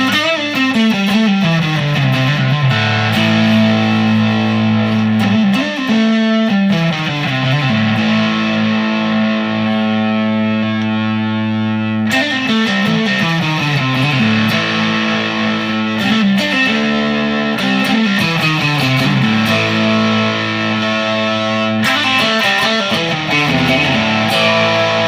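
G&L ASAT Tribute Classic electric guitar on its neck single-coil pickup, played through an amp on a high-gain setting: distorted riffs whose notes slide down into held notes, the phrase repeating about every five seconds.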